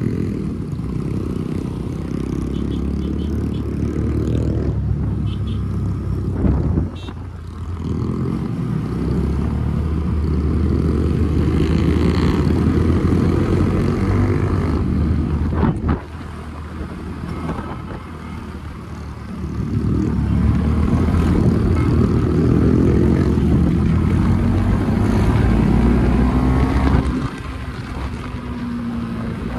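Motorcycle engine running under way, the revs rising and falling with the throttle; it eases off sharply about seven seconds in, again around sixteen seconds, and near the end.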